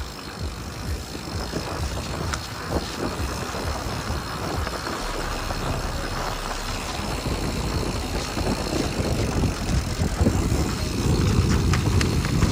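Mountain bike rolling fast down a dirt forest trail: tyre noise and frame rattle with small knocks, getting louder near the end as the rumble builds.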